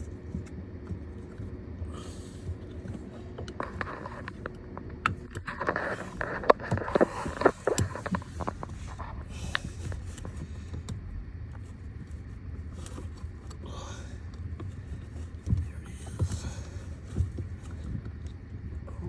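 Aftermarket pedal cover being worked onto a car pedal by hand: a burst of scraping, clicks and knocks about five seconds in, then a few scattered knocks later, over a steady low hum.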